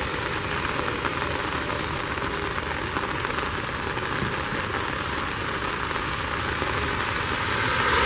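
Steady hiss of road traffic on a rain-wet road, with rain falling; a vehicle draws closer and grows louder near the end.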